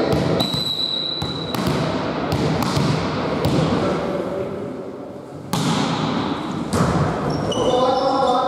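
Indoor volleyball in an echoing gym: a short, steady, high referee's whistle about half a second in, then scattered sharp impacts of the ball on hands and the wooden floor. Short shoe squeaks and players' calls come as a rally gets going near the end.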